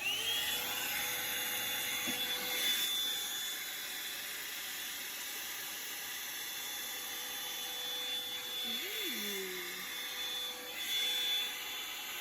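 Revlon One-Step hot-air brush dryer switched on, its motor whining up in pitch as it starts, then running steadily with a constant high whine over a rush of blown air.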